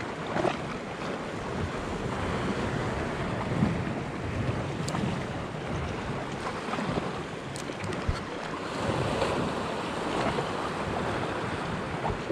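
Wind buffeting the camera microphone over the wash of calm sea water against shore rocks.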